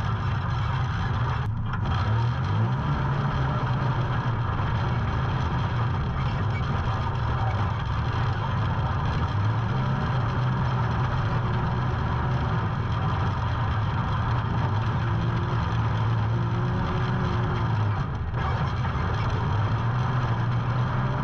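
Off-road UTV engine running steadily under varying throttle, its pitch rising and falling a little. The sound briefly drops out about a second and a half in and again near the end.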